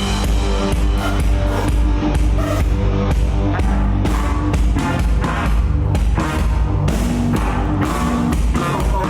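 Live rock band playing: a drum kit beating a steady rhythm over a bass line and sustained guitar chords.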